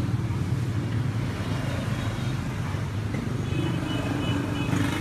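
Steady low rumble of street traffic, with faint high tones near the end.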